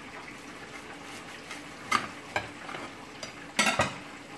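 A knife cutting through a toasted burger bun and its fillings on a plate, giving crisp crackling clicks about two seconds in and a louder cluster near the end, over a steady sizzle of chicken frying in oil.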